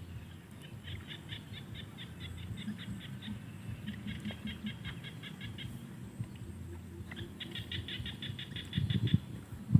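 Small paddy frogs calling: three runs of quick, evenly spaced clicking notes, each lasting about two seconds, with a couple of low thumps near the end.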